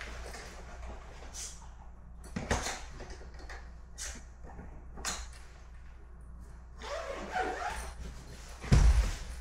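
Soft-sided collapsible fabric pet carrier being handled and set up: fabric rustling with scattered clicks and knocks, then two heavy thumps near the end.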